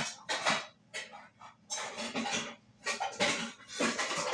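Metal pots, pans and utensils clattering and knocking together in several irregular bursts as kitchenware is handled and moved about.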